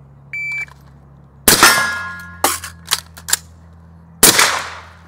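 A shot timer's short electronic start beep, then a string of about six sharp rifle shots from an AR-style rifle over about three seconds. A steel target rings after the first shot.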